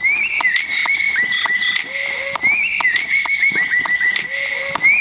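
An electronic dance track: a loop of high whistle-like squeals and quick downward sweeps over a lower held note, repeating about every two and a half seconds.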